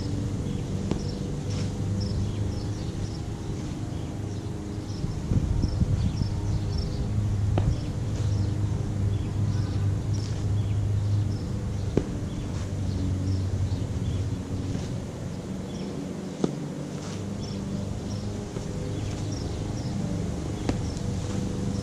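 Street ambience: a steady low mechanical hum, with short high chirps repeating throughout and a few sharp clicks, the clearest about 12 and 16 seconds in.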